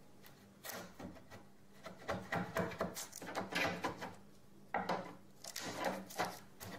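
Wood chisel paring a shallow recess into the wooden edge of a bi-fold door under a brass hinge, in a run of short scraping strokes starting about half a second in. The recess lets the hinge sit flush and closes the gap between the two door leaves.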